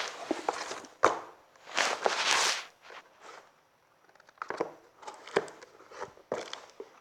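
Books and their packaging being handled: papery rustling and crinkling with scattered sharp clicks and taps, including a longer rustle about two seconds in.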